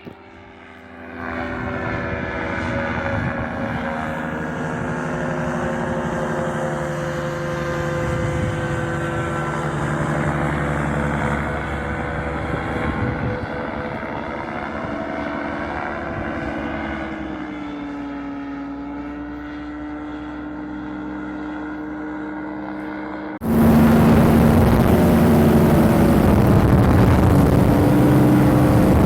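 Paramotor engine and propeller running with a steady drone; its pitch sinks slightly after about 17 seconds. About 23 seconds in the sound jumps abruptly louder and rougher, with a strong rushing noise over the engine.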